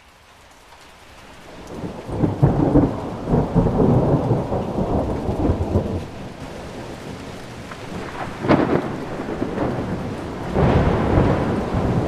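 Rain falling steadily with thunder, fading in over the first two seconds. Rumbles of thunder run from about two to six seconds in, a sharper crack comes near nine seconds, and another roll near the end.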